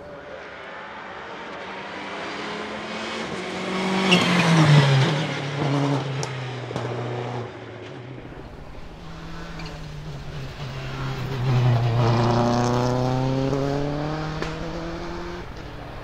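Subaru Impreza S7 WRC rally car's turbocharged flat-four engine running hard. It swells to a loud pass about four seconds in with its pitch falling, then builds to a second loud peak about twelve seconds in with the revs climbing before it fades. A few sharp cracks come in between.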